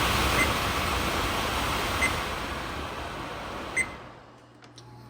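Over-the-range microwave's vent fan running with a steady rush of air that gradually fades, then a short click or beep from the control panel near the end, after which the fan winds down.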